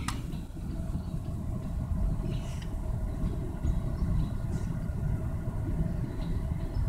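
Freight train's gondola cars rolling past on the rails, a steady low rumble with a faint steady hum and a few light ticks, heard from inside a car.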